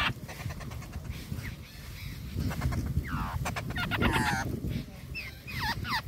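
Nestling birds calling from the nest: several bursts of harsh, rapid, raspy calls, with short chirps that slide in pitch near the end, over a low rumble of wind and handling noise.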